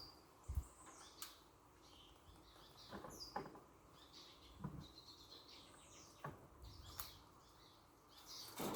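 Faint birds chirping, short high calls, some of them falling in pitch, with a few soft knocks scattered between them.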